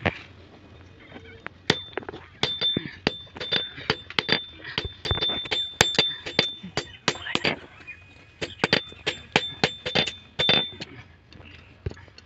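Hand hammer striking red-hot leaf-spring steel on a steel post anvil during forging: quick runs of ringing blows, several a second, with short pauses between them and a few lighter blows near the end.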